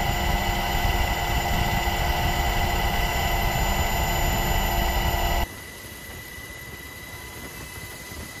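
Aircraft engine noise heard from on board, a loud steady rumble with several steady whining tones. About five and a half seconds in it cuts abruptly to a quieter, steadier hum that keeps one high tone.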